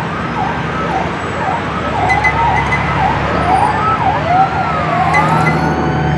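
Logo-sting sound effect: swooping electronic tones that dip and rise about twice a second, stretching into longer, slower arcs in the second half, over a steady low hum.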